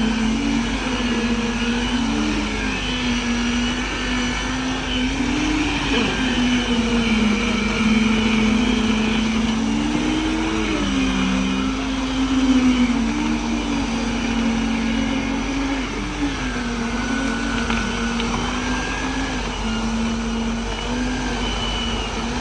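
Diesel engine of a concrete pump truck running under load, its revs swelling and easing back every few seconds as the pump works.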